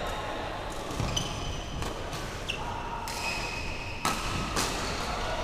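Badminton rackets striking shuttlecocks: several sharp cracks, the loudest about four seconds in. Short high squeaks of shoes on the court mats come between them.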